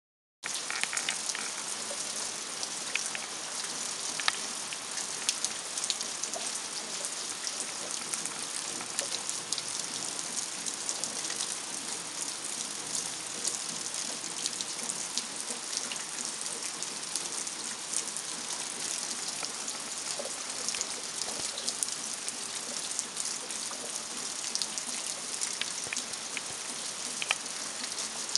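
Steady rain falling, with many small, sharp drop impacts.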